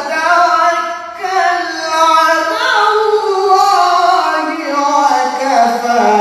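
A male qari reciting the Qur'an in the melodic tilawah style into a microphone: one voice drawing out long, ornamented notes that slide up and down in pitch.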